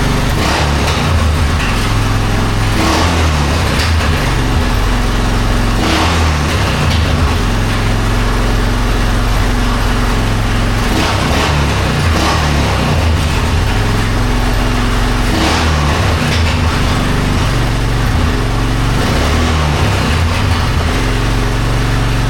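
Honda 450 Foreman ATV's single-cylinder four-stroke engine running on its freshly rebuilt carburetor, the revs rising briefly several times.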